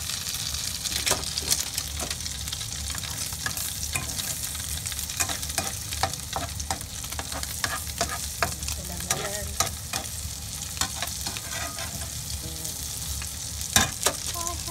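Tuna omelette sizzling in oil in a frying pan, with frequent small clicks and scrapes of a utensil against the pan and one louder knock near the end.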